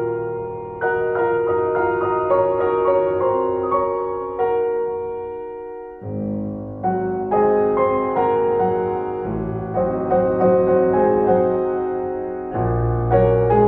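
Slow, gentle piano music: chords struck every second or two, each ringing and fading, with deeper bass notes joining near the end.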